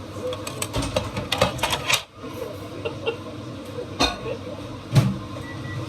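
Kitchen clatter of dishes and cutlery: a run of light clinks and knocks, with two louder knocks about four and five seconds in.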